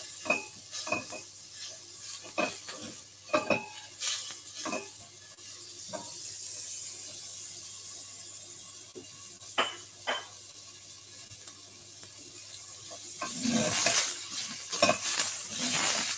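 Red onions sizzling as they fry in oil in a pan, with a utensil clicking and scraping against the pan as they are stirred; the stirring is busiest near the end.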